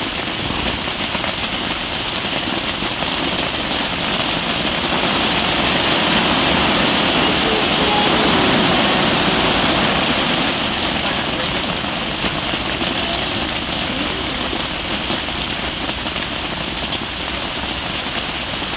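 Steady rain falling on the fabric roof and walls of a pop-up camping shelter, an even hiss that swells a little midway.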